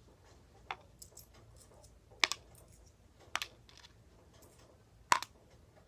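Pennies dropped one at a time into a plastic bowl of vinegar, four sharp clinks about a second or more apart.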